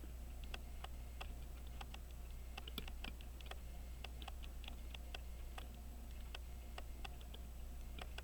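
Small, irregular clicks of tweezers and tiny metal parts being handled while fitting wheels into a pocket watch movement, a few light ticks a second at uneven spacing.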